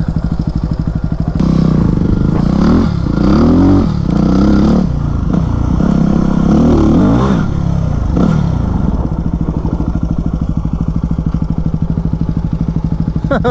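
Yamaha WR250X single-cylinder four-stroke engine ticking over, then revving up about a second and a half in. For several seconds its pitch rises and falls repeatedly as the bike pulls away and accelerates. After about eight seconds it settles back to a steady idle.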